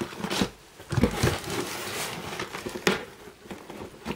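Cardboard shipping box flaps being folded open by hand, with rustling and several sharp knocks of cardboard.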